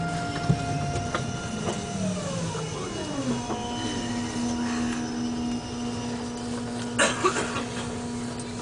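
AVE high-speed train's electric traction drive heard from inside the carriage as the train slows into the station: its whine falls in pitch over about a second, then settles into a steady hum. A brief clatter comes about seven seconds in.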